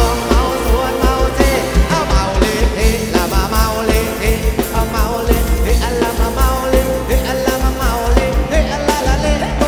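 Live band playing a Thai ramwong dance song with a steady beat, a male singer carrying the melody.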